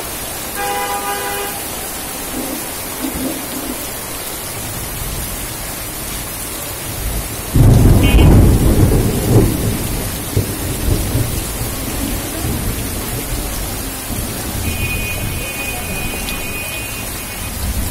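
Heavy rain pouring onto a flooded street, a steady hiss. About seven and a half seconds in, a loud clap of thunder breaks in and rumbles away over two or three seconds. Near the end a high steady tone sounds for about three seconds.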